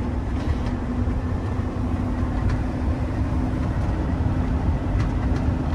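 Steady drone of the Winnebago Revel, a Mercedes Sprinter 4x4 diesel camper van, cruising at highway speed, heard inside the cab: a low engine and road rumble with a constant hum.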